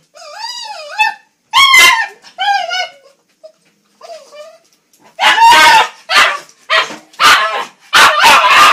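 Small long-haired dog barking and yipping in excitement. It starts with warbling, whining yelps, goes quiet for a moment, then lets out a quick run of about six loud, sharp barks.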